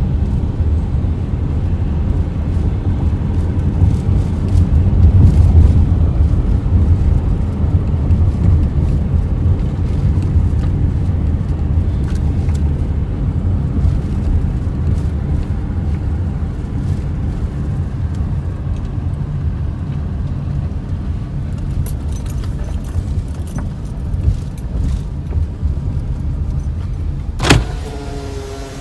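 Car in-cabin driving noise: the engine running and tyres rolling over cracked asphalt at low speed, a steady low rumble that eases off in the second half. A sharp click near the end.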